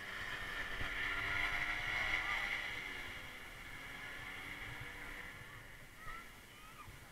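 Paramotor engine running overhead as the powered paraglider passes, growing louder to a peak about two seconds in and then fading away.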